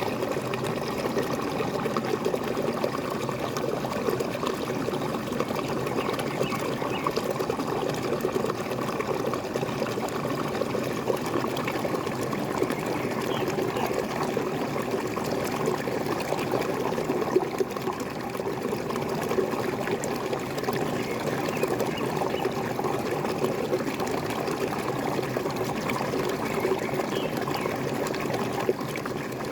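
Waterfall running with a steady, even rush of splashing water, and a few faint bird calls here and there above it.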